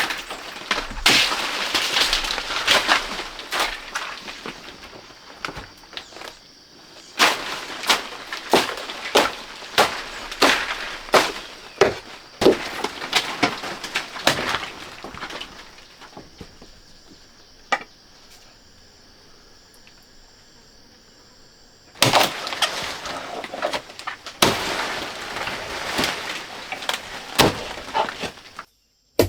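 Sharp knocks and rustling from hands-on work, in runs. The knocks come about once a second in the middle run, and there is a quiet spell of several seconds before they start again.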